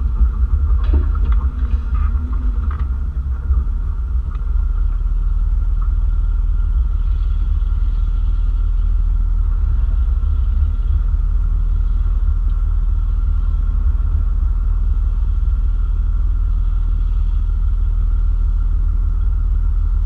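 Jeep Wrangler engine running steadily at low revs, heard as a loud low rumble through an outside-mounted camera, with a few short crunches in the first seconds as the tyres roll over rocks.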